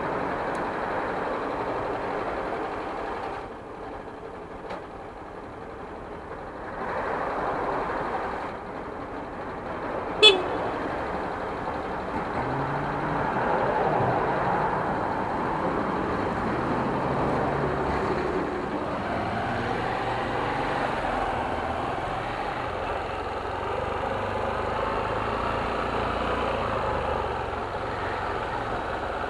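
Motorcycle engine running at low speed. One short, loud beep comes about ten seconds in.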